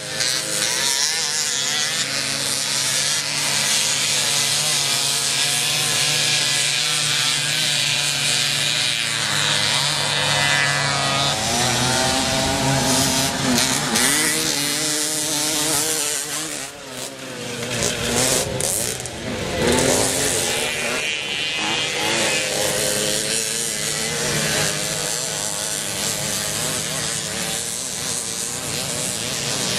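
Several small two-stroke moped engines revving hard, their buzzing pitch rising and falling as they accelerate and pass, with a brief drop in level about two-thirds of the way in.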